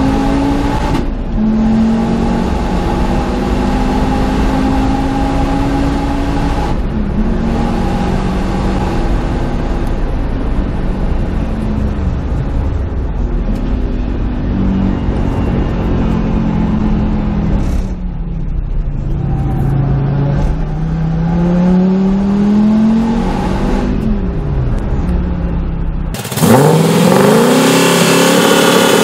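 Engine-swapped car's engine heard from inside the cabin on a race track, revving up and down through the gears, with several gear changes. About 26 s in it gives way to a turbocharged LS1 V8 in a Nissan 240SX firing a rapid string of loud anti-lag pops and bangs.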